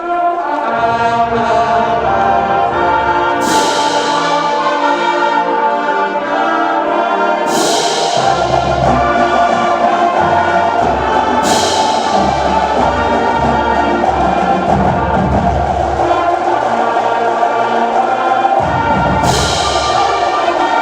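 Loud orchestral music with choir and brass, starting suddenly, with a cymbal crash about every four seconds.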